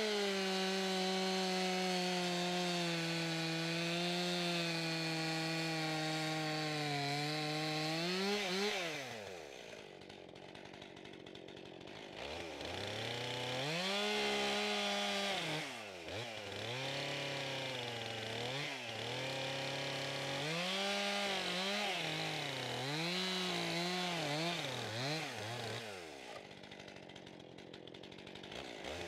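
Stihl two-stroke chainsaw cutting a mortice into a log corner, held at full throttle for about eight seconds before dropping to idle. It is then revved up and down over and over in short cuts, idles again near the end, and revs up at the close.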